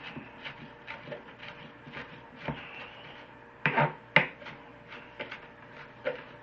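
Kitchen knife chopping a small onion finely on a cutting board: irregular knocks of the blade on the board, a few each second, with two louder chops about four seconds in.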